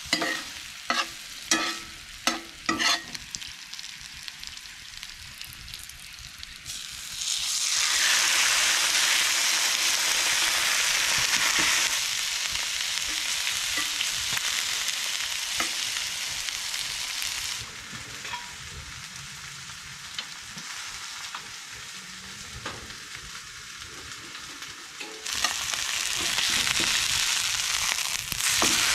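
Food frying in a cast iron skillet: a spatula scrapes and clacks against the pan as potatoes and onions are stirred. A steak laid in about seven seconds in brings a loud sizzle, which settles lower, then grows loud again near the end as the steak is turned.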